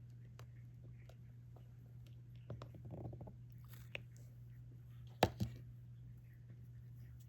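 Small scattered clicks and taps of a diamond painting pen picking up resin drills and pressing them onto the adhesive canvas, with two sharper clicks about five seconds in, over a low steady hum.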